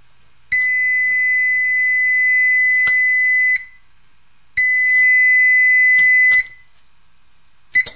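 Oven control-panel timer alarm going off as the countdown ends: a steady high beep held about three seconds, a one-second pause, then a second beep that cuts off after about two seconds as the timer key is pressed. A short key-press beep comes near the end.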